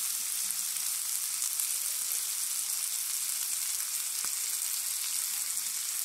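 Chopped peppered bacon frying in a nonstick skillet, its fat rendering out with a steady sizzle that sits mostly in the high range.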